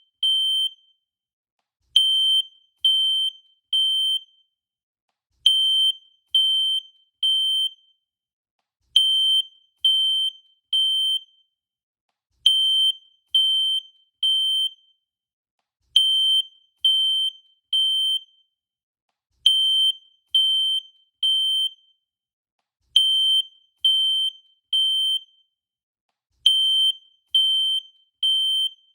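Fire alarm sounding a high-pitched beep in groups of three, each group followed by a short pause and repeating steadily: the temporal-three pattern used as the evacuation signal.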